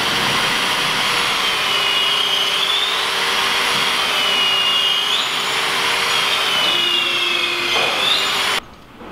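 Cordless drill boring down through stacked yellow cedar bulwark timbers in a drill guide. The motor runs steadily under load, its pitch dipping and recovering every two to three seconds as the bit bites, then cuts off suddenly near the end.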